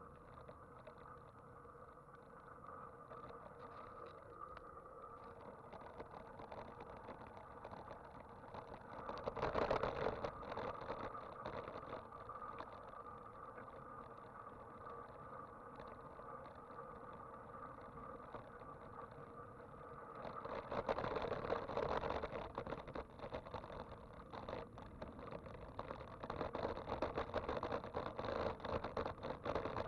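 Road and riding noise from a vehicle moving along a street: a steady hum, with louder rushes of noise about a third of the way in, about two-thirds in, and again near the end.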